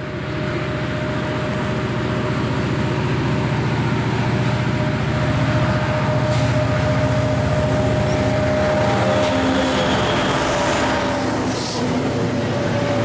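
Norfolk Southern diesel-electric locomotives hauling a freight train as it approaches and passes close by. A steady engine rumble carries a steady whine above it.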